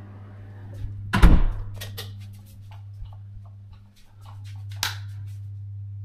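An interior door thuds shut about a second in, followed by a few light clicks and taps and one sharp click near the end, over a steady low hum.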